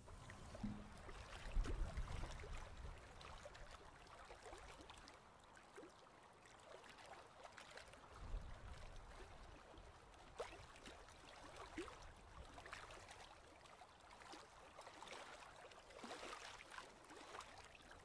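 Near silence: faint background noise with scattered small clicks and a few soft low thumps, the thumps about a second in and again about eight seconds in.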